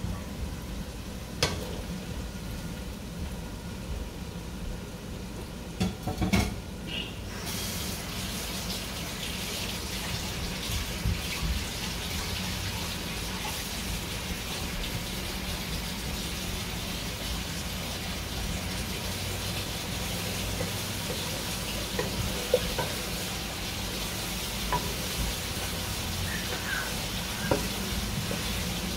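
Shrimp frying in hot oil and spice paste in a stainless steel pan, a steady sizzle that starts about seven seconds in after a few knocks as the shrimp go in, with a wooden spoon scraping and tapping the pan now and then. A steady low hum runs underneath.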